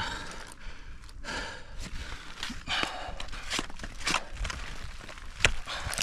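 A person breathing hard, with irregular crunching knocks of climbing gear on ice and snow.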